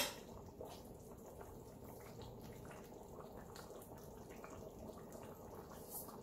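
Pot of chicken curry with potatoes simmering: faint, steady bubbling with small scattered pops, and one sharp click at the very start.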